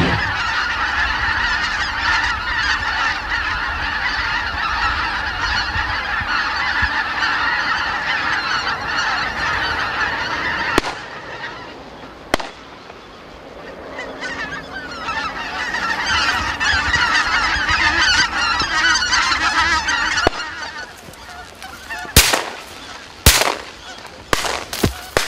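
A large flock of greater white-fronted geese honking in flight, a dense clamour of many overlapping calls that fades about eleven seconds in and swells again. Near the end come a few sharp, loud bangs.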